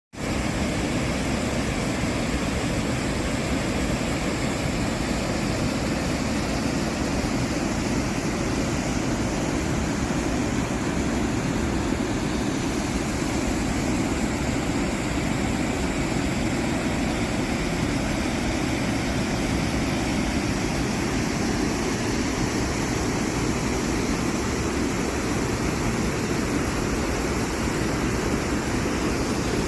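Aare River's fast-flowing water rushing, a steady, even noise.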